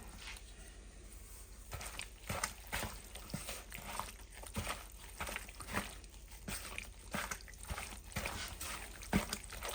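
Gloved hands mixing seasoning and habanero sauce into raw chicken thighs: faint, irregular wet squishes and small clicks.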